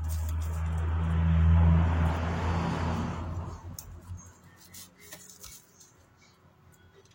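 Bosch GWS 22-180 angle grinder motor running with a steady low hum and a rushing whir. It swells to its loudest about two seconds in, then dies away by about four seconds, followed by a few light clicks.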